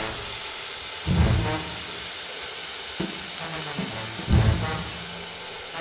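Food sizzling in a hot pan: a steady frying hiss, with low musical notes pulsing underneath every second or two.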